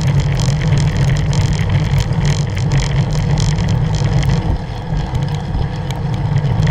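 Wind buffeting a bike-mounted action camera's microphone while a road bicycle is ridden at speed, with a steady low rumble from the tyres and road and many small rattles and ticks.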